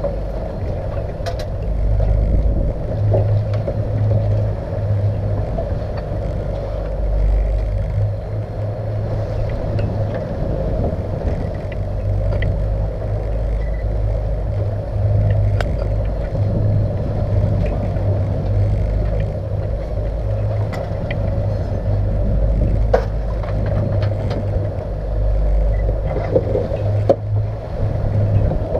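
Boat's twin outboard motors running steadily under way, a low rumble that swells and eases slightly, mixed with water wash. A few sharp clicks and knocks of gear on the boat stand out, the loudest near the end.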